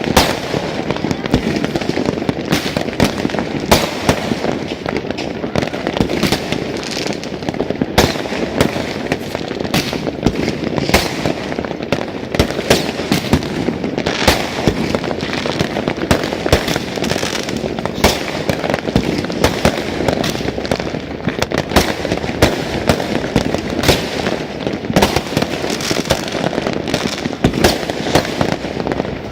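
Many fireworks going off at once: an unbroken stream of bangs and crackles, with sharper, louder bangs every second or so.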